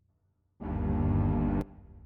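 Horror score music: after a brief near-silence, a sudden loud, dense low musical hit sounds about half a second in. It is held for about a second and cut off abruptly.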